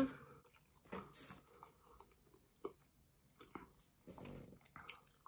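Quiet chewing of sushi, heard as a scattering of short, soft mouth clicks.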